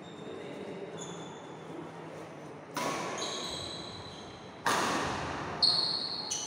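Badminton racket strikes on a shuttlecock, two sharp hits about two seconds apart that echo in a large hall, followed by two smaller hits near the end, with high squeaks of shoes on the wooden court.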